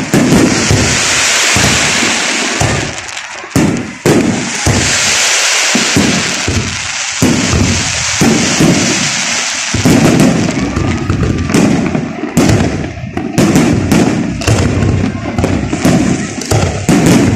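Aerial fireworks going off in rapid succession: many sharp bangs from bursting shells, overlapping into a continuous barrage, with dense high crackle in the first part.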